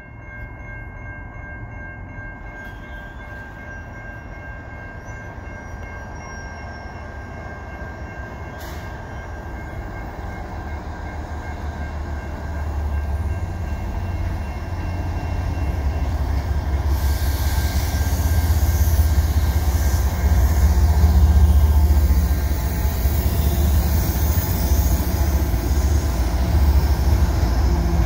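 Railroad crossing bell ringing steadily while a freight train led by two GE ES44DC diesel locomotives approaches and passes. The locomotives' deep rumble grows steadily louder and is loudest a little past halfway, and the noise of wheels on rail rises as the engines reach the crossing.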